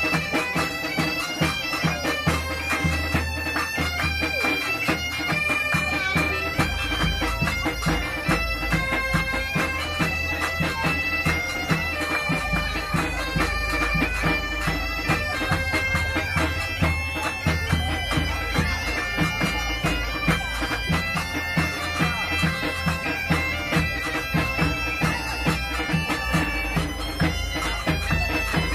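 Background music: a reedy pipe melody stepping between held notes over a steady drone, with a regular beat underneath.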